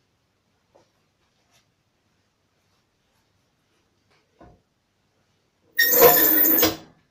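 Movable prop arm of a shoe sole press being swung down its metal rack over the shoe, a loud scraping noise lasting about a second near the end. A little before, a soft thud as the lasted sneaker is set into the press's bowl.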